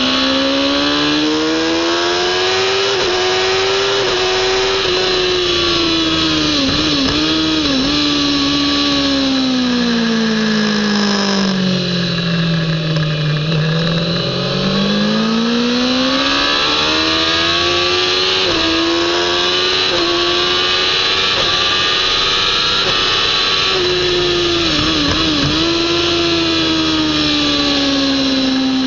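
Kawasaki ZX-10R's inline-four engine at racing revs, its pitch rising and falling with the throttle through gear changes, with quick dips where it is shifted down. It drops lowest, near 5,000 rpm, about halfway through, then climbs back to a high-revving scream. Wind rush runs under it.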